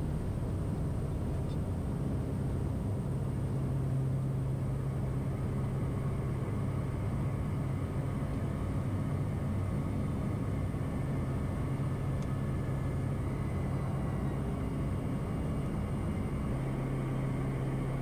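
Piper Meridian's Pratt & Whitney PT6A turboprop engine and propeller running steadily at climb power, heard inside the cockpit as an even drone with a strong low hum.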